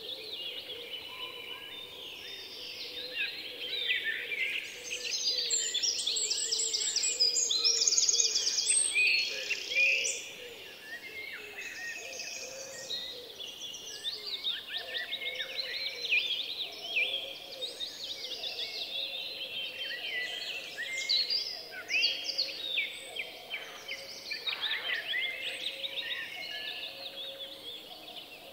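Many birds chirping and singing at once, a dense chorus of quick rising and falling calls, loudest about five to ten seconds in.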